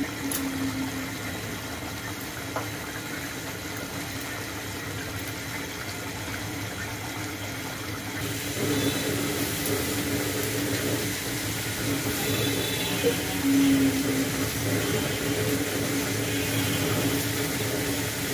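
Pomfret fish curry boiling in a pan, a steady bubbling that grows louder about eight seconds in.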